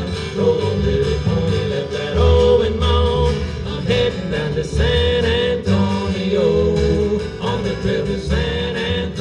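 Live western band music: a cowboy song with guitar accompaniment and harmony singing.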